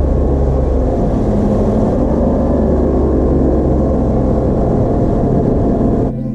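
A boat's motor running steadily at speed, cutting off suddenly about six seconds in.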